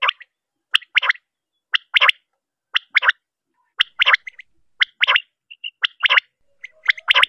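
Quail (batair) calling: short, sharp notes mostly in pairs, about one pair a second, repeated steadily.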